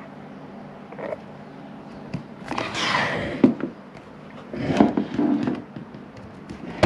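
Kayak flap pedal drive being lifted and turned by hand on a wooden workbench: a scraping rustle about two and a half seconds in ending in a click, then a few light clatters and knocks of its plastic parts and chain near five seconds.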